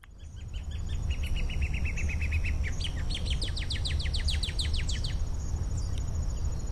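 A songbird singing one long trill. It starts as a fast run of short, even notes, then slows into wider, downward-sweeping notes and stops about five seconds in. A steady high-pitched whine and a low rumble continue underneath.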